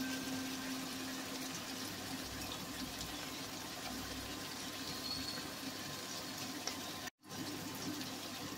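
Shredded chicken and onions sizzling in a frying pan: a steady, even hiss that breaks off for an instant about seven seconds in.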